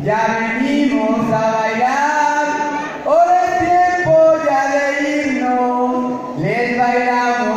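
A man singing unaccompanied into a microphone over the hall's loudspeakers, in a chanting style with long held notes that slide up into each phrase.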